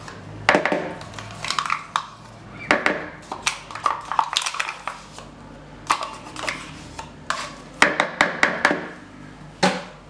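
Metal spoon scraping yogurt out of a plastic yogurt pot and knocking against the pot and a mixing bowl: a run of irregular clicks and short scrapes, with a sharp knock near the end.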